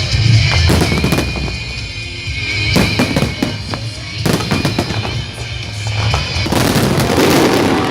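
Aerial fireworks bursting in sharp bangs at irregular intervals, with a dense spell of crackling near the end, over loud music from the pyromusical soundtrack.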